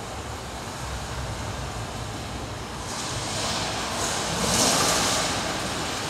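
A steady rushing noise, like wind or surf, that swells from about three seconds in, with a bright hiss that peaks just past the middle and then eases off.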